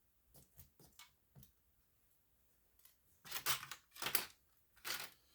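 A blade cutting craft material for a model build: a few faint clicks, then several louder crisp cuts from about three seconds in.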